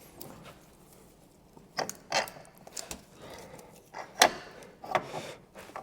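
Metal hand tools and car suspension parts clicking and knocking: about half a dozen sharp, irregular clicks and knocks, the loudest about four seconds in.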